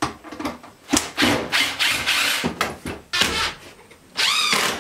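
Wooden kitchen cabinet scraping and rubbing against wood as it is handled, in several rough strokes, with a short squeak near the end.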